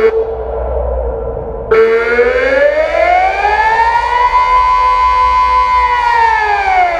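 Delta 6 civil-defence siren sounding the Austrian 'Alarm' signal, a wailing tone that rises and falls repeatedly. The pitch climbs from low to high over about three seconds, holds for a second or two, then falls again near the end, and the sound turns much brighter about two seconds in.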